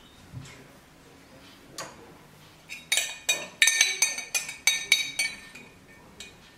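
Kitchenware clinking: a quick run of about a dozen sharp, ringing clinks, starting a little under three seconds in and stopping a little after five seconds.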